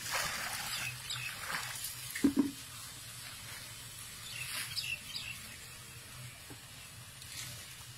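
Water pouring and splashing from a bucket into a tub, followed by two sharp thumps about two seconds in. Short high chirps come a little later.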